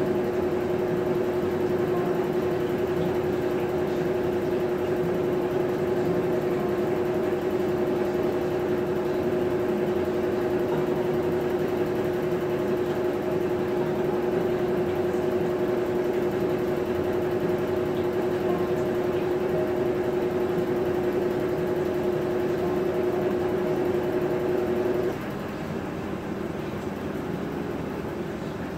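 Maytag top-load agitator washing machine running with a steady motor hum, which cuts off suddenly near the end, leaving a fainter steady hum.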